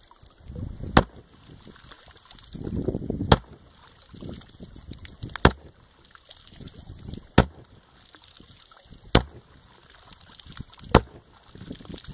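Glock 22 .40 S&W pistol fired six times, about every two seconds, with its muzzle just under the water's surface. Each shot throws up a splash, and water sloshes and splashes between the shots.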